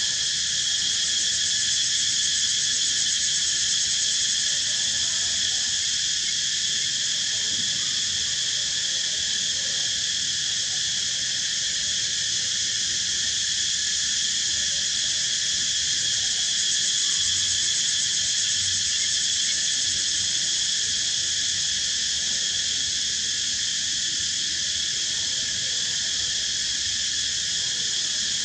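Steady insect chorus: a continuous, unbroken high-pitched drone made of several high tones layered together.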